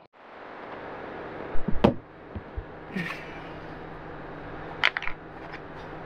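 Three sharp plastic clicks, the loudest about two seconds in, as a round LED daytime running light is pressed and seated into its opening in a van's plastic front bumper, over a steady background hiss.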